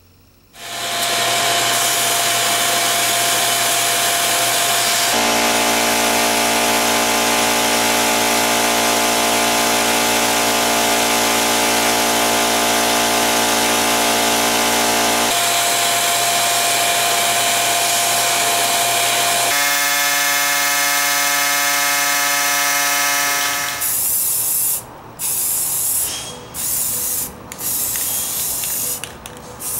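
Sandblasting cabinet's blast gun hissing steadily as it blasts the jack's cast base, with steady humming tones underneath that change a few times. Near the end, an aerosol spray-paint can sprays in several short bursts.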